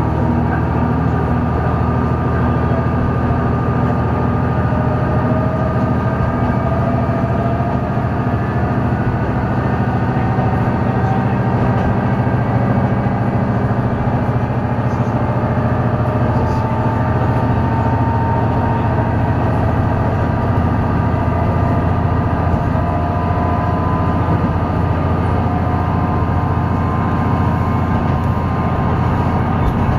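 Diesel railcar running along the line, heard from inside the car: a steady engine drone with a few slowly rising whines.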